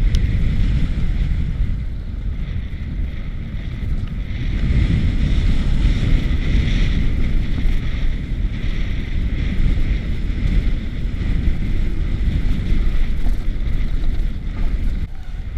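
Wind rushing over a helmet-mounted camera's microphone as a mountain bike descends fast on a dirt trail, with the tyres rolling and the bike rattling over the dirt underneath. The noise is loud and unbroken and swells a little about a third of the way in.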